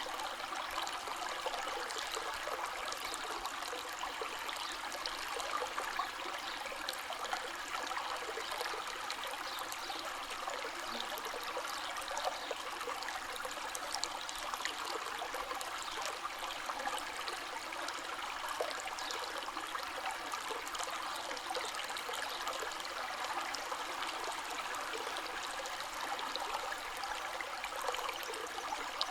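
A river or stream flowing steadily over rocks, a continuous rushing with fine splashes and trickles.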